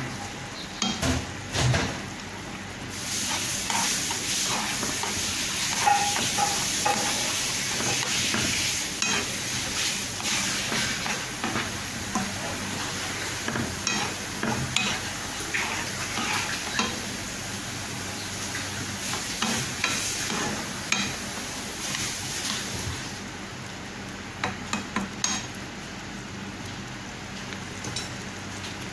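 Tomato and onion gravy sizzling in a frying pan while a metal spoon stirs it, clicking and scraping against the pan. The sizzle grows louder about three seconds in and eases off near the end.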